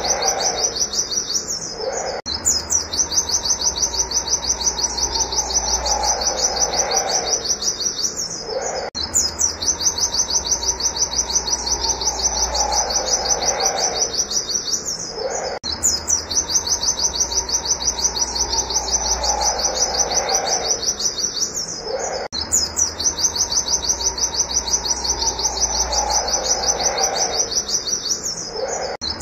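White-eye (pleci) singing a fast, unbroken run of high 'wit wit' notes, the rapid 'nembak' style of song. The recording is looped, restarting with a hard cut about every seven seconds.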